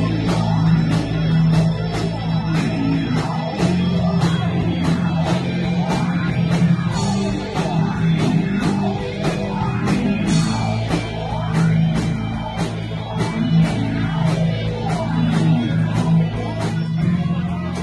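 Live rock band playing with electric guitar, bass guitar and a drum kit, the drums keeping a steady beat under a low bass line.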